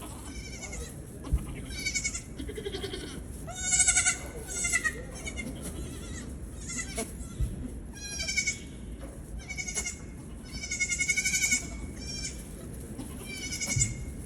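Baby Nigerian dwarf goats bleating again and again: about a dozen high-pitched, wavering calls, the loudest about four seconds in and again near eleven seconds.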